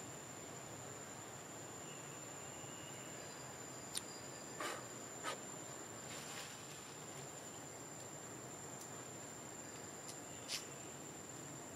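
Steady, high-pitched insect trill over faint background hiss, with a handful of short, sharp clicks about four to six seconds in and again near the end.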